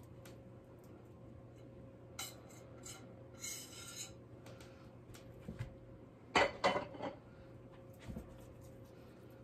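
A utensil scraping cornbread batter out of a mixing bowl into a cast iron skillet: soft scraping and small clinks against the bowl, with a brief clatter of louder knocks a little past the middle. A faint steady hum runs underneath.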